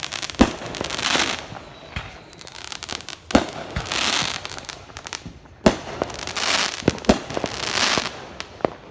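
Aerial fireworks going off: four sharp bangs a couple of seconds apart, each followed by about a second of crackling as the shell's effects burst.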